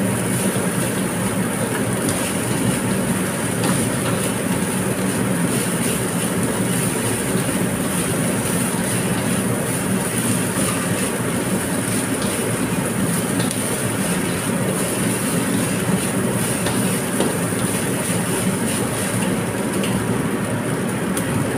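Rice stir-frying in a wok: a steady sizzle and rush, with a spatula stirring and scraping the rice around the pan and a few faint taps.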